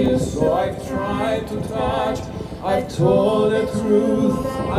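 Live concert singing heard from the audience: a sustained voice with vibrato over soft acoustic guitar accompaniment, carried through the venue's sound system.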